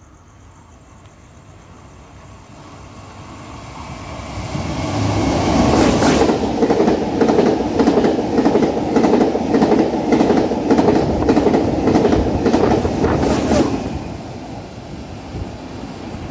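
Taiwan Railways PP Tze-Chiang push-pull express passing through a station at high speed. The sound builds over several seconds, then there is a loud rush with a rapid run of wheel clacks over the rail joints for about eight seconds, and it drops away near the end.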